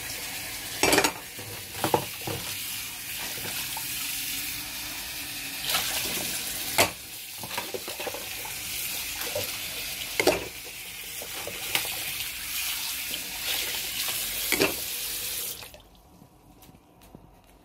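Tap water running into a stainless steel sink while dishes are washed, with a few sharp knocks of bowls and utensils against the sink. The running water stops suddenly near the end.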